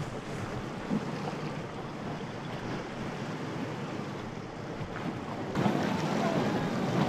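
Wind buffeting the microphone over choppy sea water rushing and splashing around racing sailing yachts, a steady noisy rush. About five and a half seconds in, it cuts abruptly to a louder, busier mix of wind and water.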